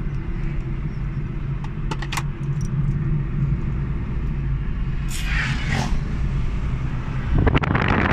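A car's steady low engine and road rumble heard inside the cabin while driving. There are a few light clicks about two seconds in and a brief higher rush around the middle. A loud rush of wind noise comes in near the end.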